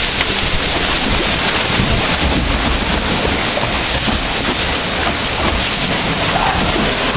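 Log flume water rushing and splashing along the trough around the boat, a loud, steady wash of noise.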